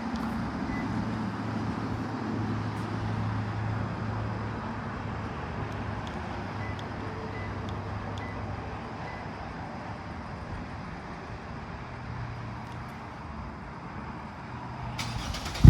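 A car engine running steadily with a low hum, mixed with road and traffic noise; a short burst of hiss comes just before the end.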